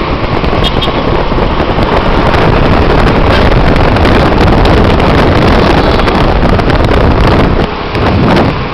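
Loud, steady wind buffeting the microphone over road and vehicle noise while moving along a road; it drops a little near the end.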